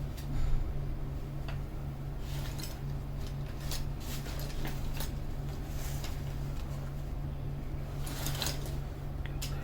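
Small clicks and scrapes of hand work on a VOOPOO Argus pod vape as a new pin is fitted, over a steady low hum. The clicks come in scattered clusters, most in the middle and again near the end.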